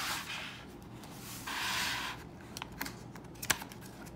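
A picture book's paper page being turned and pressed flat by hand: a short rustle of paper about halfway through, then a few light taps and clicks.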